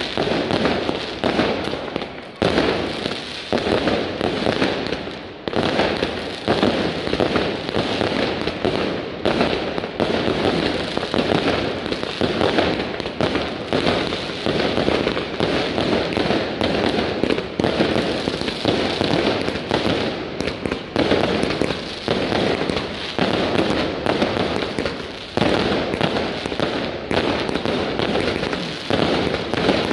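Fireworks going off in a dense, continuous barrage of rapid bangs and crackling, with rockets bursting overhead.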